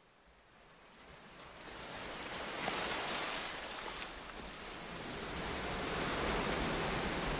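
Steady rushing noise, like surf or wind, fading in from silence over the first couple of seconds, with no music yet.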